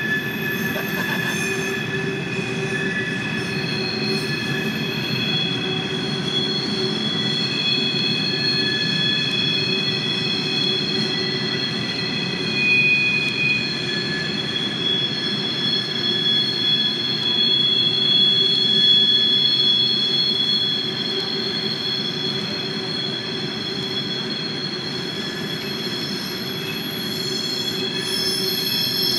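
Freight train hopper cars rolling around a tight curve, their steel wheels squealing against the rails in several steady high tones over a low rolling rumble.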